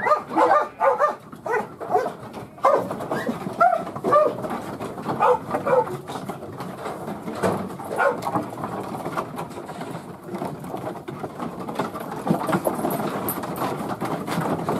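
Working sheepdog barking repeatedly at sheep in a race: a quick run of short barks at the start, then barks about a second or so apart.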